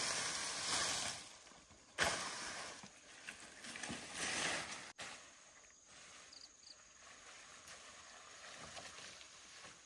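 Dry vines and brush rustling and crackling as they are pulled and dragged, with a single sharp knife chop about two seconds in. After about five seconds only faint outdoor background remains.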